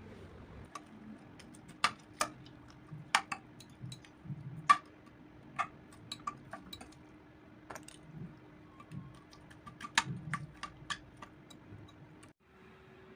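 Irregular light clinks and taps of kitchen utensils against bowls and dishes, a dozen or more scattered strikes over a faint steady hum. The background cuts abruptly near the end.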